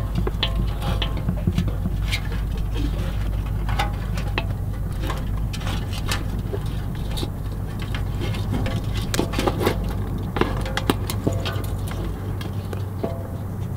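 Scissors snipping through live mud crabs' shells and legs, with crabs' legs clicking and scraping against the metal basin: irregular sharp clicks throughout, over a steady low rumble.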